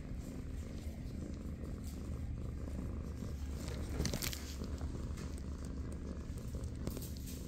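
Kitten purring close up, a steady low rumble, with a short rustle about four seconds in.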